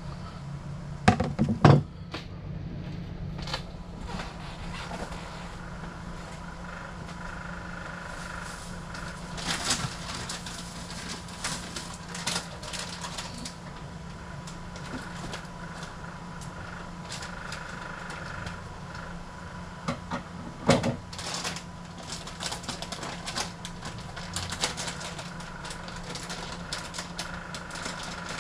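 Kitchen handling sounds: scattered sharp knocks and clatters of things being picked up and set down on a countertop, the loudest about a second and a half in, over a steady low hum.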